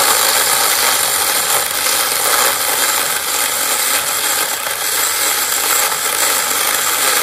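Battery-powered TomyVIC mini chainsaw with a 6-inch bar running steadily under load, its chain cutting down through a tree limb from above.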